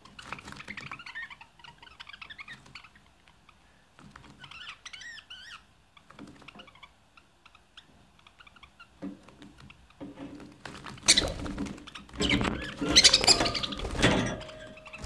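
Budgerigar chatter and warbling: short, wavering phrases at first, then a louder, dense chatter with sharp clicks from about two-thirds of the way through.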